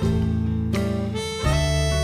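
Background instrumental music: held, reedy melody notes over a steady bass, the chord changing about every three-quarters of a second.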